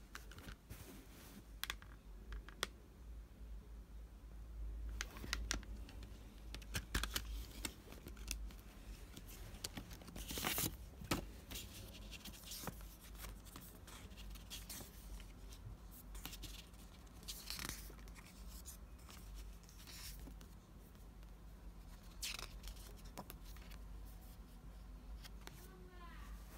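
Hands handling a CD in a plastic jewel case: irregular clicks and scrapes of the case, and the paper booklet rustling as its pages are turned.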